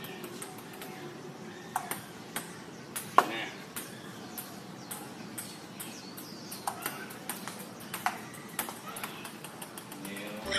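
Table tennis rally: a plastic ping-pong ball clicking off paddles and bouncing on the table, in a run of sharp clicks at uneven intervals.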